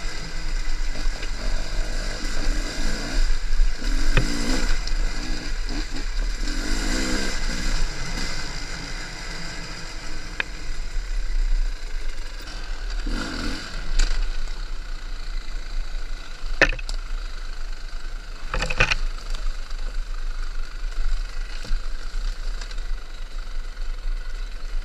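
Enduro dirt bike engine revving up and down over rough ground for the first several seconds, then running lower and quieter. Sharp knocks and clatter break in several times.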